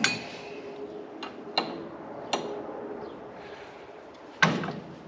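Hand wrench clinking against a tractor's sway-block bolt and steel bracket while the bolt is worked loose: a handful of irregular sharp metallic clinks, each with a short ring, the loudest about four seconds in.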